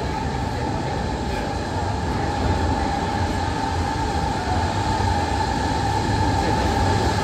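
Mail Rail's small battery-electric narrow-gauge ride train running on its rails: a steady low rumble with a high wheel squeal held over it, growing a little louder about two and a half seconds in.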